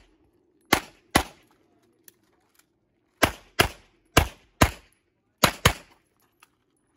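Six 9mm pistol shots from a CZ Shadow 2 fired in pairs, each with a short ringing echo. The first two come about half a second apart, then three quicker pairs follow between about three and six seconds in.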